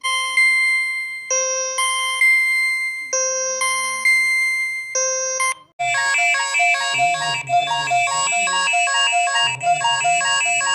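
Electronic emergency alert tones: a repeating pattern of clean pitched beeps, then, after a brief break about six seconds in, a faster and busier ringtone-like electronic melody.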